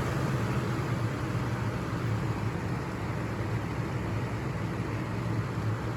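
Lasko box fan running steadily on medium speed: an even rush of moving air over a low motor hum.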